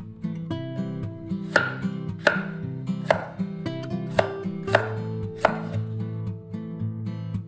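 Cleaver-style kitchen knife slicing tomatoes into wedges, its blade knocking on a wooden cutting board about six times, a sharp knock every second or less, over soft guitar music.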